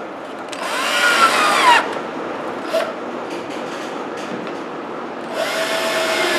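Electric drill running in two short bursts of about a second each as it drives into wood, the motor's pitch dropping as each burst ends.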